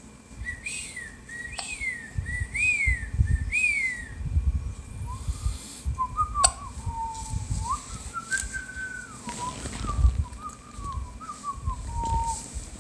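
A man whistling a tune. It opens with a quick phrase of short rising-and-falling notes repeated about four times, then moves into a slower, lower melody that stops shortly before the end. Soft low thumps and rumbles of handling run underneath.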